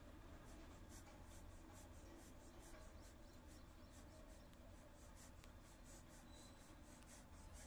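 Near silence: faint steady outdoor background with light, rapid high-pitched ticking throughout.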